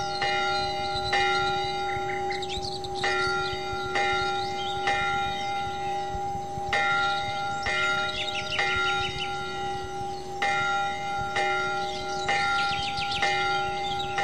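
Bells ringing, a new stroke about once a second, with different pitches sounding in turn and each ringing on under the next. Birds chirp briefly over them several times.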